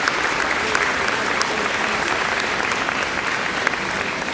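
Audience applauding, a dense patter of clapping that slowly eases off toward the end.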